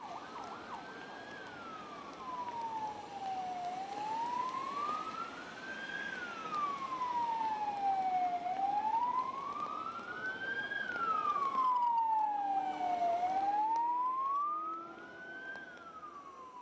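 Emergency vehicle siren wailing, slowly rising and falling in pitch about every five seconds. It grows louder through the middle and fades away near the end.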